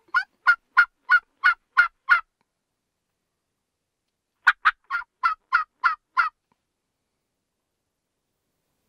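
A hunter's reed mouth turkey call yelping like a hen: two runs of seven evenly spaced yelps, about three a second, the second run starting about four and a half seconds in.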